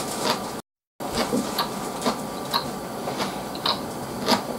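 Close-miked chewing: wet mouth clicks and smacks about twice a second over a steady hiss, with a short drop to dead silence about a second in.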